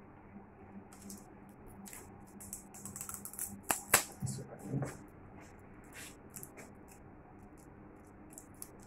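Faint, irregular small clicks and taps, with two sharper clicks about four seconds in.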